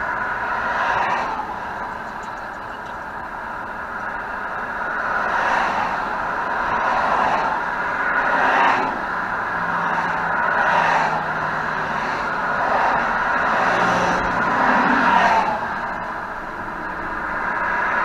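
Busy highway traffic passing at speed: a steady rush of tyre and engine noise that swells as each car or truck goes by, every few seconds.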